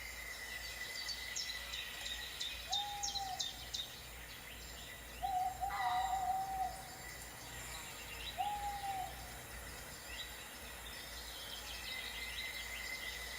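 Birds calling: three level, hooting calls, the middle one longest, over many quick high chirps from other birds.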